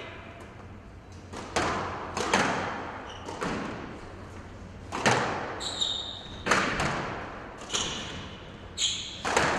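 Squash rally: sharp racquet hits and the ball striking the walls, about one a second, echoing around the court, with a few short high shoe squeaks on the floor in the middle and near the end.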